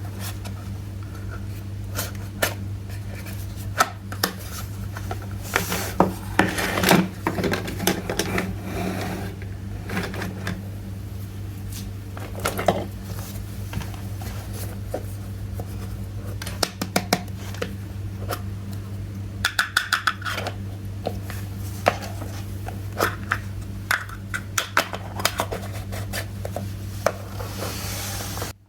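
Small plastic toy kitchenware being handled and set down: irregular light clicks, taps and rattles over a steady low hum.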